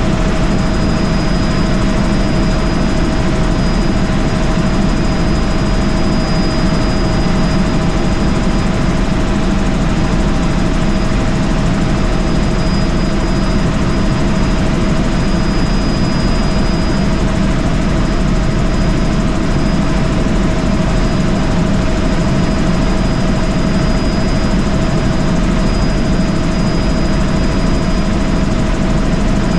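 Helicopter in flight heard from inside the cabin: a loud, steady drone of engine and rotor with a thin steady whine over it.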